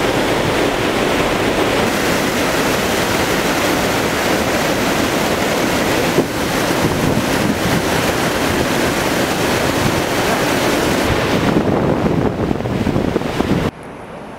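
River water pouring over a low weir and churning into whitewater: a loud, steady rush. It cuts off suddenly near the end.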